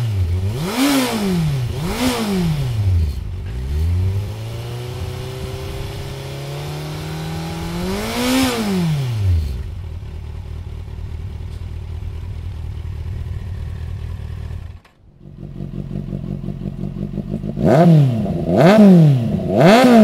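Kawasaki Z800 inline-four engine revved through its standard exhaust: two quick blips, then a slow climb in revs for several seconds that drops back to a steady idle. After a short break the same engine idles through a Lextek CP1 aftermarket silencer, then gets three louder quick blips near the end.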